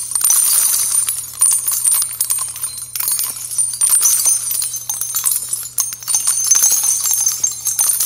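Dense jingling crackle full of small clicks over a steady low hum, cutting off suddenly near the end.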